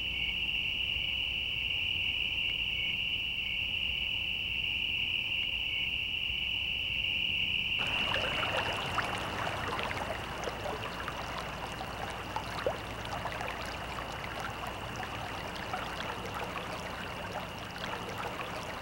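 A steady high-pitched drone with a faint low hum beneath it. About eight seconds in, a crackling hiss joins it.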